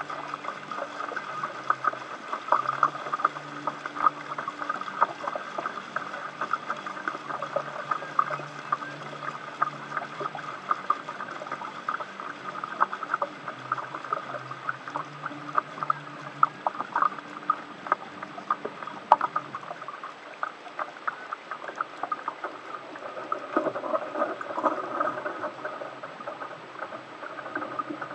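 Water lapping and splashing against the hull of a sailboat under way in a breeze: a busy, irregular patter of small slaps over a steady wash. A faint low hum runs underneath and fades out about two-thirds of the way through.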